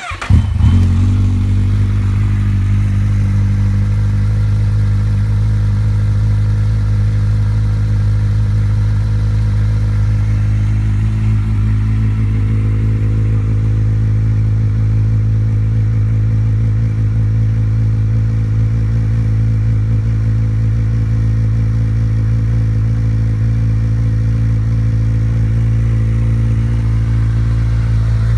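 2013 Kawasaki Z1000's inline-four engine cold-started through M4 slip-on exhausts. It catches at the very start with a brief rev flare, then settles into a steady, loud idle.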